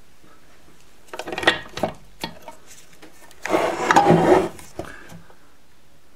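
Metal parts clattering as the split crankcase half of a KTM Duke 125 engine, with its gearbox gears and shafts, is handled on a workbench: a run of clinks a little after a second in, a single knock just after two seconds, and a longer, louder clatter from about three and a half seconds.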